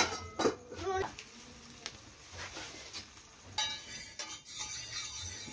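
A metal plate clanks down as a lid on an iron pan over a wood fire, with a few lighter knocks just after. Then, a little over halfway through, a hissing sizzle starts suddenly and holds.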